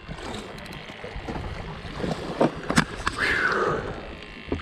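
Wind and water noise on a small fishing boat, with two sharp knocks a little over two seconds in.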